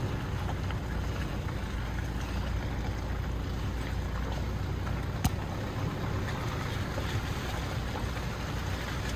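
A car driving steadily, with road and tyre noise over a low engine rumble, and a single sharp click about five seconds in.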